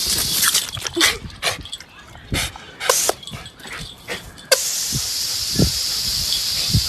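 A dog's small noises over a steady hiss. The hiss drops out for a few seconds in the middle, leaving short clicks and knocks, then cuts back in suddenly about four and a half seconds in.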